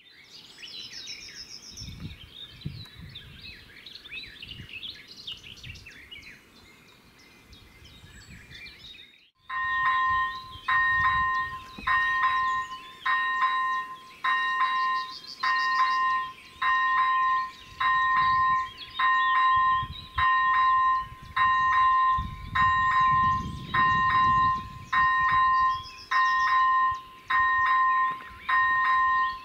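Birds chirping. About nine seconds in, the electronic bell of an AŽD 97 level-crossing signal starts ringing, a two-tone ding about once a second: the crossing has activated to warn of an approaching train.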